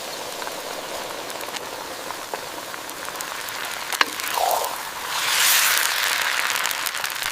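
Seafood stir-fried noodles sizzling and crackling in a hot wok, a steady hiss with fine pops. There is a sharp click about four seconds in, and the sizzle grows louder for a couple of seconds after it.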